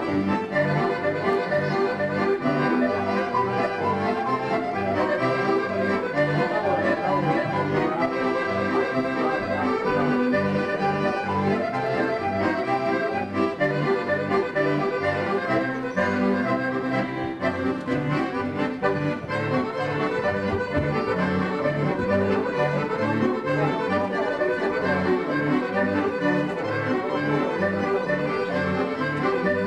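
Two piano accordions playing a polka duet, with a steady pulsing bass beat under the melody.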